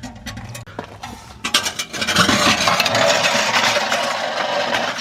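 Hand work on a car's exhaust system: a few metal clicks and knocks, then a steady, grainy scraping rasp of metal parts for the last three seconds or so.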